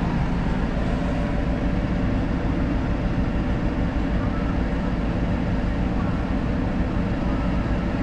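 Tractor's diesel engine running steadily, heard from inside the cab.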